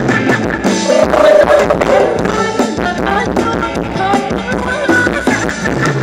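Live dance band playing upbeat music with a steady beat.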